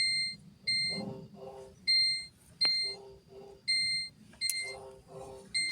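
A repeating electronic alarm-like beeping pattern: two short high beeps, then two lower, fuller tones, the cycle repeating about every two seconds, with a low background rumble underneath.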